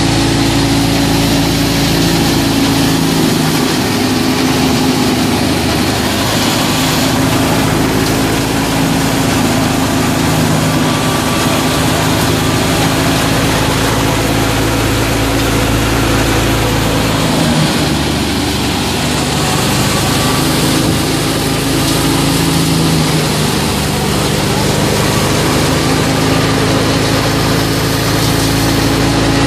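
Wheat thresher running under power from a Fiat 640 tractor's diesel engine: a loud, steady machine drone with a low hum. The lowest part of the hum weakens for a while twice.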